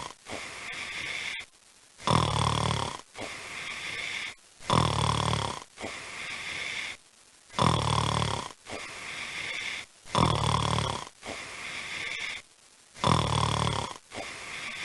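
A person snoring heavily: a loud buzzing snore about every two and a half to three seconds, each followed by a softer, quieter breath and a brief pause, five cycles in a row.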